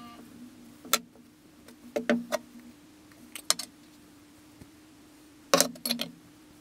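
Workshop handling sounds: the knife laid down on a cloth on a metal workbench and a metal wax tin and its lid being handled, giving several short clicks and clinks, the loudest about five and a half seconds in. A faint steady hum runs underneath.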